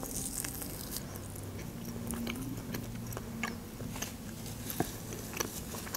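A woman bites into a fried meat chop (otbivnaya) dipped in soy sauce, then chews it with soft, scattered wet clicks.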